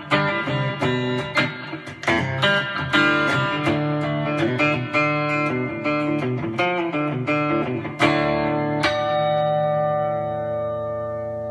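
Gretsch G2622T Streamliner semi-hollow electric guitar played on its bridge pickup alone: a run of picked notes and chords, then a chord struck about eight seconds in and left to ring out.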